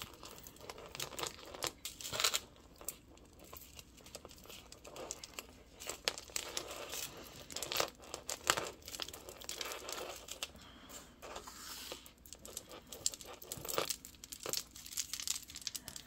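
Plastic bag crinkling and irregular small clicks of beads and chain as a beaded necklace is handled and untangled.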